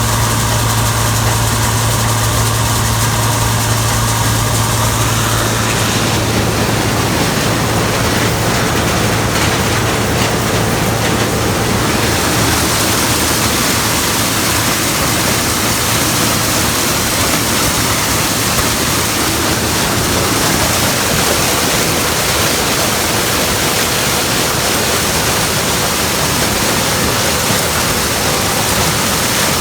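Gleaner combine harvester running. A steady low engine hum over the first several seconds gives way to an even, loud rushing noise.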